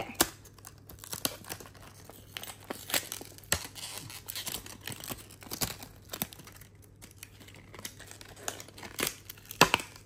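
Plastic blister packaging and its cardboard backing card being torn and crinkled by hand to free a padlock, with irregular crackles and snaps. The sharpest snaps come just after the start and again near the end.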